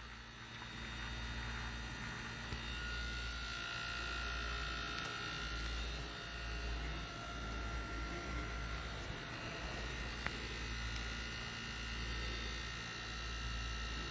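Steady low hum from an inverter air-conditioner test bench, with the compressor and fan motor running on the outdoor PCB under test, and a faint high whine above it.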